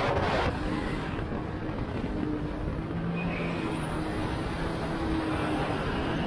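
Sea-Doo jet ski's supercharged Rotax 1630 three-cylinder engine running under way, with rushing wind and water noise. The loud hiss of wind and spray cuts off sharply about half a second in. After that a steady engine hum remains, with faint held engine tones.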